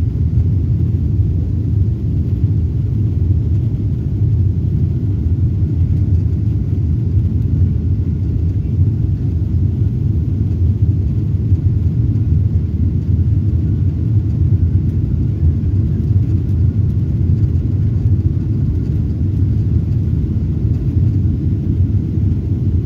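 Steady low rumble of a jet airliner's passenger cabin in flight: engine and airflow noise heard from inside, even and unbroken.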